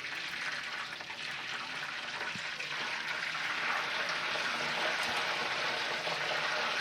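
Hot oil sizzling steadily around a whole steamed chicken chargha as it deep-fries in a karahi, growing a little louder partway through.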